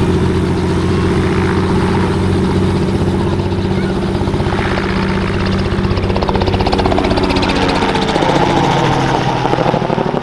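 Robinson R44 Raven II helicopter making a low pass overhead: its Lycoming IO-540 flat-six engine and main rotor blade chop. The sound grows through the pass, and the pitch drops about eight seconds in as the helicopter goes by.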